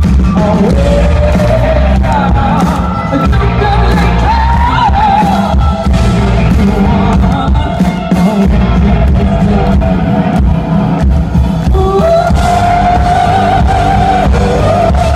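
Live rock band playing a song with a lead vocal over heavy bass and drums, recorded from the audience with loud, rough, overloaded sound.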